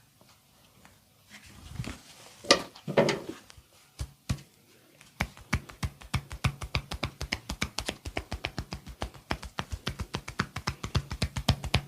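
Rapid percussive massage strokes: hands striking the body in a fast, even run of taps, about seven a second, beginning about five seconds in, as in hacking or chopping massage. Before that come a few separate slaps.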